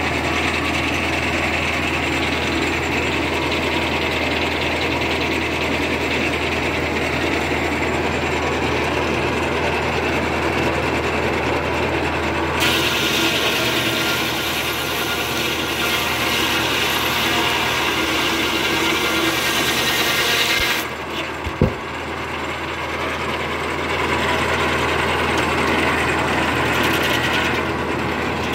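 Tractor-driven Belsaw/Timberking circular sawmill running, its big blade spinning over a steady engine hum. About halfway through, the blade bites into a cherry log and rips through it for about eight seconds with a loud hissing rasp, then drops back to freewheeling, with a single knock just after the cut ends.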